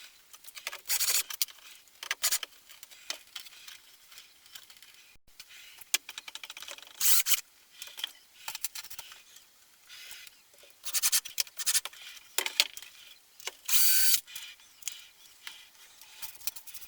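Hand work in a workshop: a run of short scrapes, clicks and light knocks from tools and materials being handled, with several louder scraping bursts.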